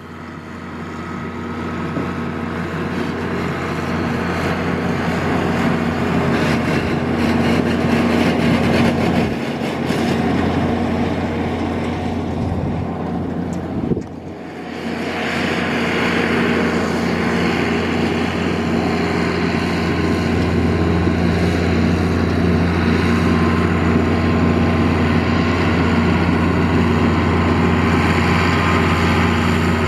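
John Deere 4650 tractor's 466-cubic-inch six-cylinder diesel running steadily under load while its PTO drives a 3975 pull-type forage harvester chopping alfalfa, a constant engine drone under the harvester's steady whir. The sound fades in over the first few seconds and dips briefly about fourteen seconds in.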